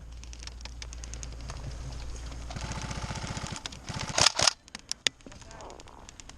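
Airsoft electric guns firing full-auto: a fast rattle of plastic BB shots and gearbox clicking, with a short louder burst about four seconds in and a single shot soon after.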